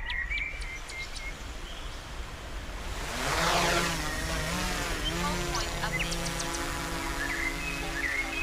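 DJI Air 3S drone's motors spinning up about three seconds in, the pitch sweeping and rising, then settling into a steady propeller hum as it takes off. Birds chirp a few times.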